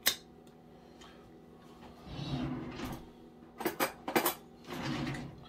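Metal spoon scraping and clinking inside an opened tin can while chipotle peppers in adobo are scooped out: a sharp click at the start, a stretch of scraping about two seconds in, a few quick clinks, then more scraping near the end.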